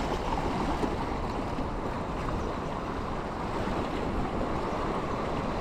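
Sea waves washing and swirling over shoreline rocks, a steady rushing wash, with wind on the microphone.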